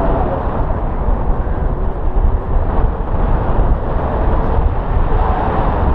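Wind rushing over the microphone of a paraglider in flight: a steady, loud low rumble of buffeting airflow.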